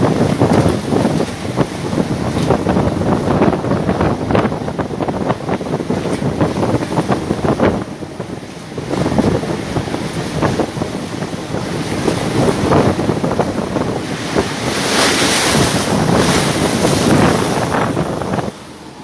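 Rough seas: waves crashing and surging against a ship's hull, with strong wind buffeting the microphone. A louder hissing rush comes about three-quarters of the way through.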